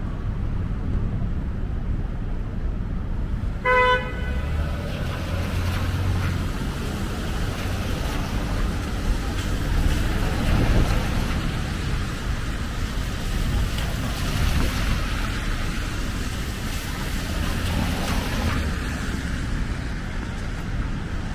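A single short vehicle horn toot about four seconds in, over steady street traffic noise, with a vehicle passing louder around ten seconds in.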